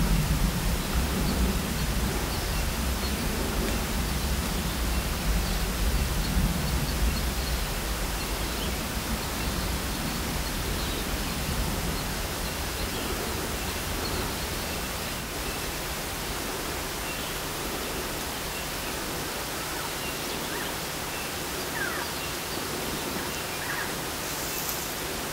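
Steady outdoor background hiss, with a low rumble that is stronger for the first several seconds and then fades.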